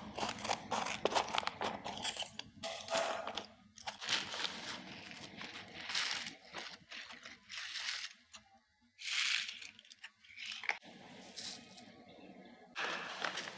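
Seed packets crinkling and rustling as they are handled and snipped open with scissors, then shaken so the seeds spill out; a run of short, uneven crackles with a brief lull partway through.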